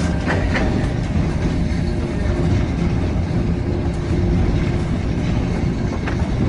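Passenger train running along the track, heard from inside the carriage: a steady low rumble with a faint steady hum and a few light clicks near the start.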